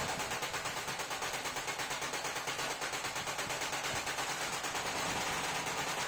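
Flywheel-driven mechanical punch press punching small holes in a brass plate as the plate is turned under the punch: a fast, even rattle of metal strokes, several a second.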